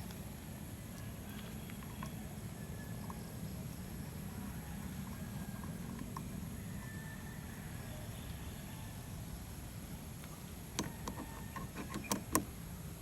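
Low steady background rumble, then a cluster of sharp metallic clicks and taps in the last two seconds or so: hand tools and bolts being handled while fitting gold bolts to a motorcycle's body panels.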